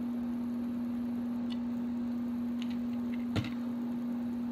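Steady low hum with a few faint ticks, and one sharp knock about three and a half seconds in as a plastic bottle is set down on the desk.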